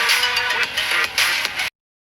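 Background music with a steady beat that cuts off suddenly near the end, leaving silence.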